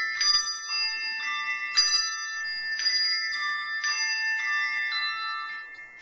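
Handbell choir ringing a piece: chords of several handbells struck together every second or so, each note ringing on and overlapping the next.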